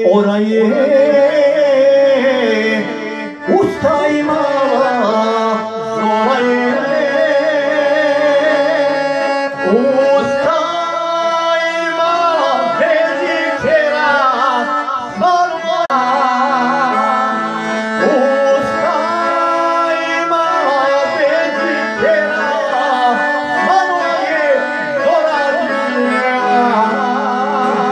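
A man singing a traditional Bosnian song (sevdalinka-style) through a microphone, accompanied by a piano accordion. The voice holds long, ornamented, wavering notes over sustained accordion chords.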